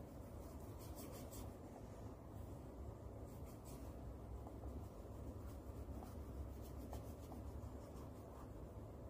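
Paintbrush dabbing and rubbing thick red paint onto paper, faint scratchy strokes coming in short runs.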